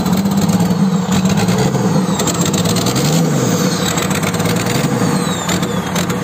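Komatsu excavator's diesel engine running, its deep note wavering up and down in a slow repeating cycle about every second and a half; the uploader says the old machine is coughing.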